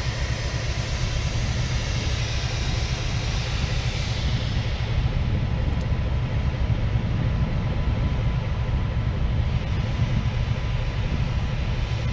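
Compressed air hissing out of the open front angle cock of the LORAM maintenance-of-way locomotive as its brake pipe is vented during an air-brake check; the hiss is strong at first, dies down about four to five seconds in, and returns faintly near the end. Under it runs a steady low rumble from the idling locomotive.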